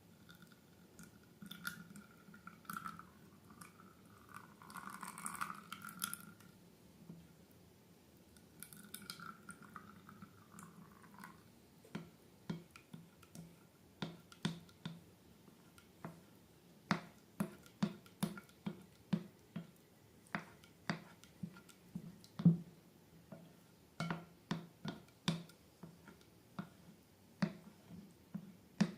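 Slime being squeezed and squished by hand. First comes a soft, hissy squeak for several seconds, then a run of sharp, sticky wet clicks and pops, about one or two a second.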